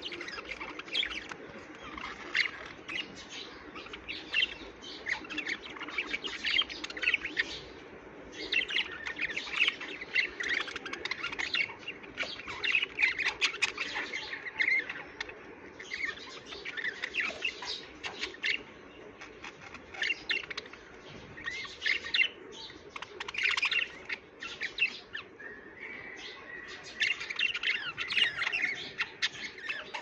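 Caged budgerigars chattering: dense runs of short chirps and warbles, coming in bursts with brief lulls.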